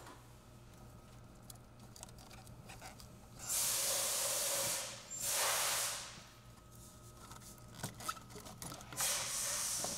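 Plastic air intake tube and its rubber bellows coupler rubbing and scraping as the tube is twisted and wiggled loose from its fittings by hand: three hissy scrapes of about a second each, with a few small clicks in between.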